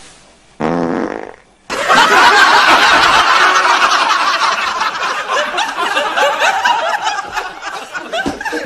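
A short low-pitched blurt, about half a second long, then a sudden burst of loud laughter from many people that carries on to the end.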